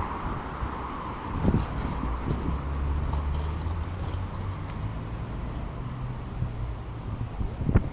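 City street traffic. The tyre noise of a passing vehicle fades over the first second or so, then an engine hums low and steady for several seconds. A sharp knock comes near the end.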